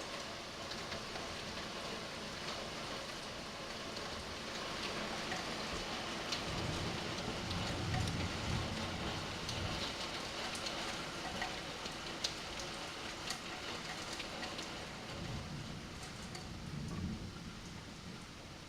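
Heavy rain pouring down on surfaces, a steady hiss dotted with sharp ticks of individual impacts. A low rumble swells about seven seconds in and again near the end.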